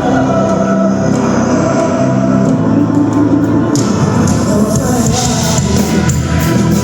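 Rock song playing: dense held chords, with a brighter layer of sharp percussive hits coming in about four seconds in.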